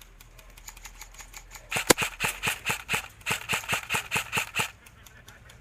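Airsoft rifle firing a quick string of single shots, about five a second, for roughly three seconds starting near two seconds in.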